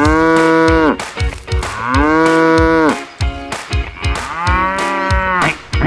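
A cow mooing three times, each moo about a second long, over a steady beat.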